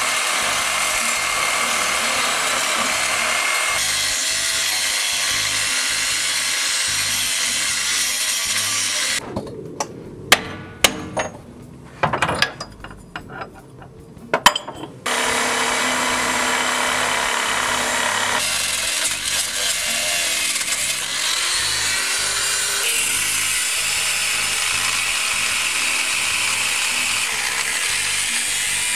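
Angle grinder's abrasive disc cutting into a truck alternator at its pulley, a steady, loud grinding. The grinding drops out about nine seconds in, leaving a few clicks, and starts again about six seconds later.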